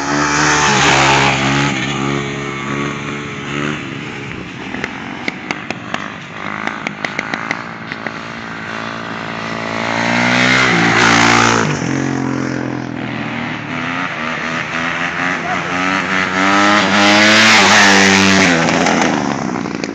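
Dirt bike engines revving as riders wheelie past one after another, three loud passes with the engine note dropping in pitch as each bike goes by. A run of sharp clicks sounds midway.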